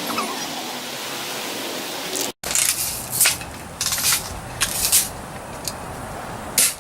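Several BB guns being fired: a run of short, sharp pops at irregular intervals, starting after a brief cut-out about two seconds in, over a steady hiss.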